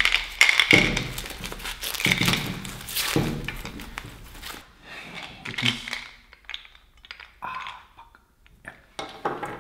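Packing paper crinkling and tearing as a large jointed hard-plastic swimbait lure is unwrapped, with knocks and clacks from the lure body being handled. The rustling is dense for the first few seconds, then dies down to scattered clicks.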